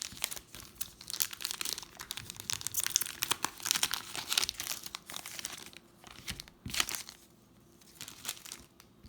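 Foil booster pack wrapper crinkling and tearing as it is opened by hand, a dense run of crackles that thins out after about five seconds, with two last crinkles near the end.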